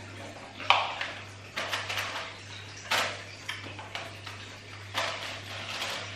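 Cardboard gift box being handled and opened: a handful of short sharp rustles and taps as the ribbon is pulled off and the lid lifted, over a steady low hum.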